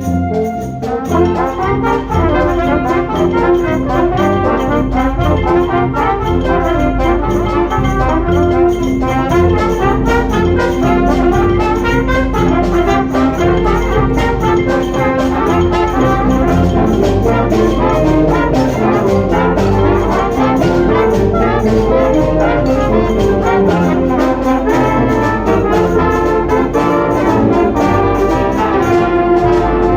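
Brass band music playing a busy, steady tune, with the full passage coming in about a second in.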